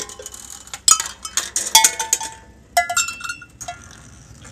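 Steel ball bearing running through a kinetic display and striking a row of small cowbells: about six metallic clanks at uneven intervals, each ringing briefly at a different pitch.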